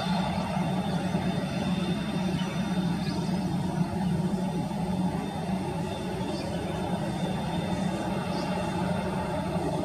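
Steady distant rumble of an Airbus A320-214's CFM56 jet engines as the airliner taxis on the runway, with a few faint high chirps now and then.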